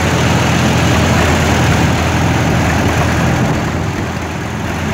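McCormick Super W6 Standard tractor's four-cylinder engine idling steadily.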